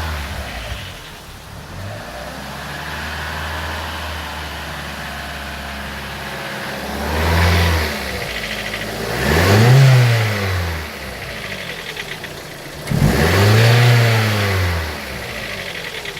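Vauxhall Corsa OPC/VXR's 1.6-litre turbocharged four-cylinder engine idling, then revved three times, each rev rising and falling back to idle. The owner reports a strange noise from it since an oil change.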